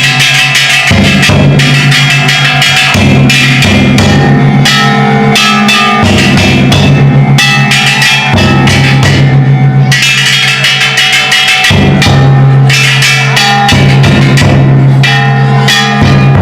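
Loud ishidori-bayashi festival music: a big taiko drum and bronze kane gongs struck hard and fast, the gongs ringing on over one another.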